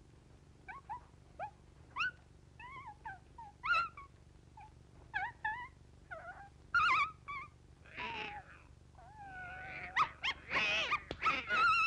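Cartoon animal voices: a puppy's short, high whimpers and yips, then a cat's hiss about eight seconds in and a louder, wavering yowl near the end.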